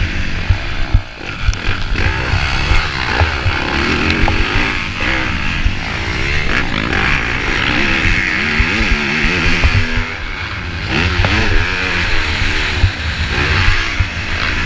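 250 cc motocross bike engine revving hard and backing off over and over at race pace, its pitch repeatedly climbing and dropping. Low rumbling thumps from wind on the helmet-camera microphone run underneath.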